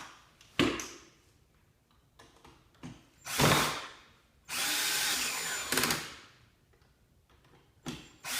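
Electric screw gun driving screws into the plastic axle bracket in short runs: a brief burst about three and a half seconds in, a steady run of about a second and a half soon after, and another starting near the end, with a few small clicks between.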